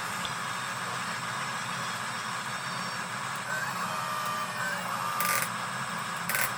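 Electric drive motors and gearing of a HUINA 1583 RC bulldozer model running with a steady whir. Two short hissing bursts come near the end.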